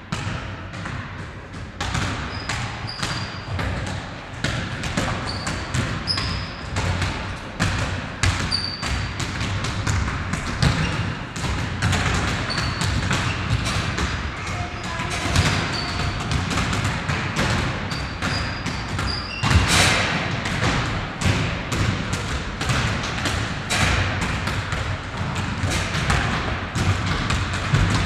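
Basketballs being dribbled on a wooden gym floor: many irregular bounces from several balls at once, with now and then brief high squeaks.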